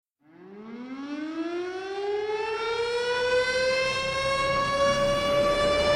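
A siren winding up, one tone rising slowly and steadily in pitch and swelling in loudness as it starts.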